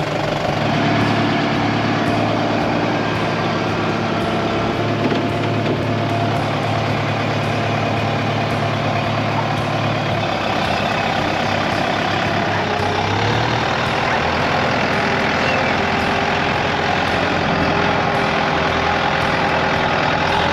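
Kubota 95-horsepower tractor's diesel engine running steadily as the tractor is driven, its note stepping up in pitch about 13 seconds in.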